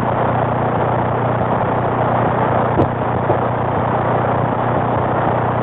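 AM CB radio receiver giving a steady hiss with a low hum underneath, heard through the radio's speaker between transmissions on the channel.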